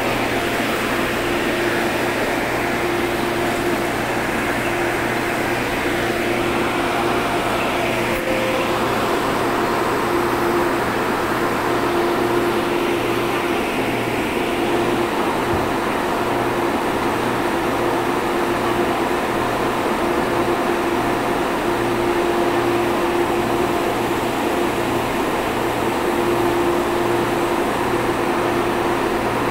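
Steady hum of a metro train's air-conditioning and on-board equipment while it stands at a station, with a low tone that comes and goes.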